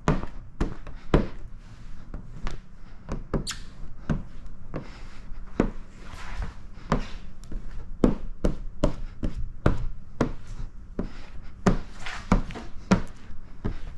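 A run of short taps and knocks, irregular at about two a second, as a hand squeegee is worked stroke by stroke over wet paint protection film on a truck hood.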